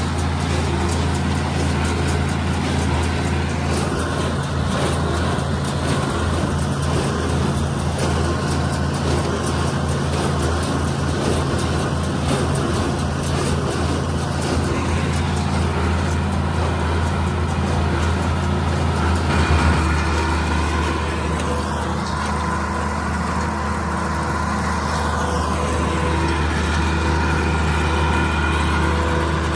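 Tractor engine running steadily under load, pulling a small square baler. About twenty seconds in, the drone changes slightly in tone.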